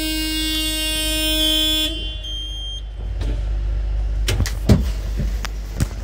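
Bus horn sounding one steady, even blare that cuts off about two seconds in, followed by a short high beep and a few knocks of handling in the cab.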